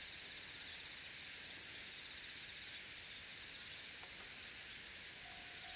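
Insects chirring in summer countryside: a faint, steady, high-pitched hiss with a fast pulsing trill running through it.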